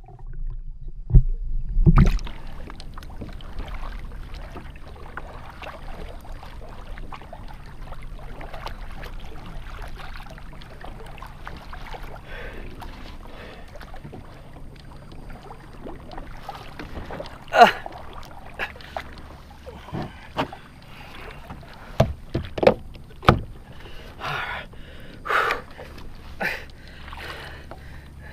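Water lapping and sloshing against a plastic fishing kayak's hull, muffled for the first couple of seconds while the microphone is under water. Sharp knocks and splashes come through it, more often in the second half.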